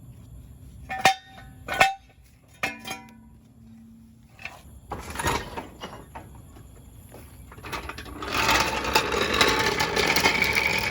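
Three sharp metal clanks with a brief ring, from the floor jack and steel jack stands being worked under the car, followed by a longer stretch of scraping and rattling noise near the end.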